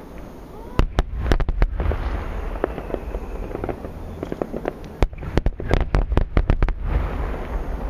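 Large 10-inch (shakudama) aerial firework shells bursting, heard from far away: a volley of about six sharp booms about a second in, then a rapid cluster of about ten more between five and seven seconds in, over a low rumble.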